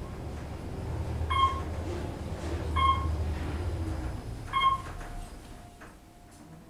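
Otis GEM traction elevator riding up, its short electronic chime sounding three times, about a second and a half apart, as the car passes each floor. Under the chimes runs the low hum of the car in motion, easing off after the last chime.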